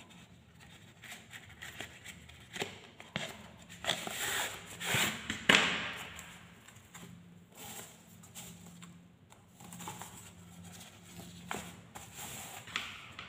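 Cardboard box being opened and a tablet in plastic wrapping taken out and handled: irregular crinkling, rustling and small clicks of cardboard and plastic, busiest about four to six seconds in.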